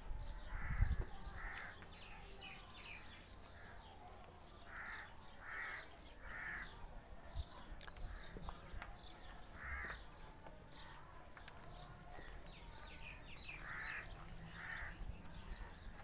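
Birds calling: short rough calls repeated in twos and threes, with fainter small chirps in between. A low thump sounds about a second in.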